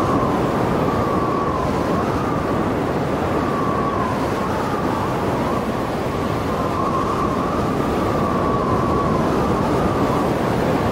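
Storm wind and heavy surf: a steady, loud rush of noise, with a whistling tone in the wind that wavers and comes and goes every second or two.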